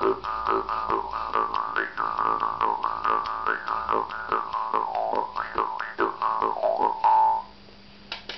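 Homemade bamboo jaw harp played with quick rhythmic strikes, about three a second, over a steady drone, the mouth shaping an overtone melody that rises and falls. It ends on a held note, followed by two faint clicks near the end.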